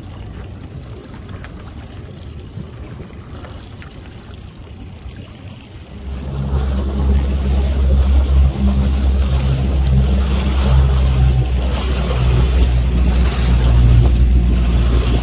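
Boat engines droning low and steady, loud from about six seconds in, over wind and water noise; before that only a quieter wash of wind and water.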